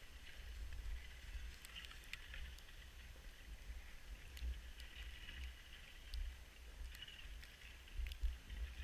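Skis sliding on packed snow up a drag-lift track: a steady quiet hiss with scattered small clicks, over a fluctuating low rumble on the microphone.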